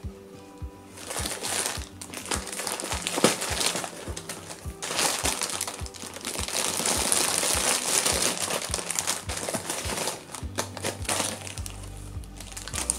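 Clear cellophane wrapping crinkling and rustling as it is handled and pulled, loudest through the middle of the stretch, over background music with a steady beat.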